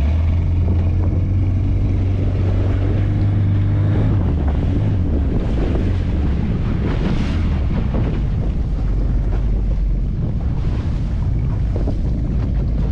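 Outboard motor of a small fiberglass fishing boat running under way, a steady low hum whose pitch drops slightly about four seconds in, with wind buffeting the microphone and the sea rushing past the hull.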